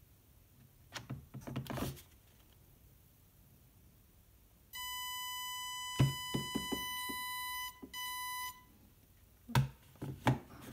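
Electronic beep from the WLtoys K696 V2 LCD transmitter's buzzer: one steady high tone held about three seconds, then a short second beep. Clicks and knocks from the transmitter's controls and handling come before and after it.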